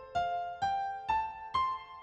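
Background music: a piano playing a slow melody, one struck note about every half second, each ringing and fading before the next.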